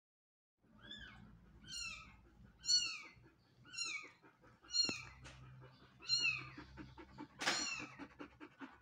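Newborn kitten mewing: a high, thin cry that falls in pitch, about seven times, roughly once a second, while it is being bottle-fed. A sharp click about five seconds in.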